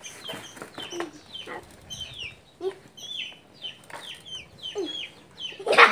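Puppy whimpering and yelping in a string of short, high cries that fall in pitch, about two or three a second.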